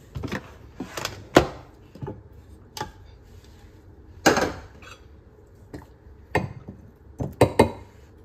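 Scattered clicks and knocks of kitchen things handled on a countertop, with a longer clatter about halfway through. Near the end comes a quick run of clinks as a metal spoon knocks and scrapes in a glass bowl of blended corn.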